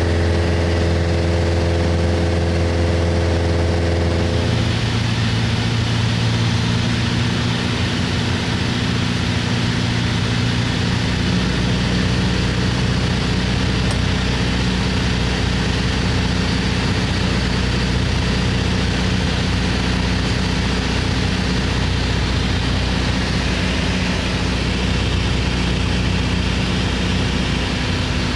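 Small propeller airplane's engine and propeller droning steadily, heard from inside the cockpit; the engine note shifts about four seconds in.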